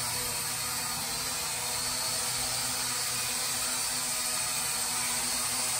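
Small toy quadcopter drone flying, its propellers and motors giving a steady buzzing whine that holds one pitch.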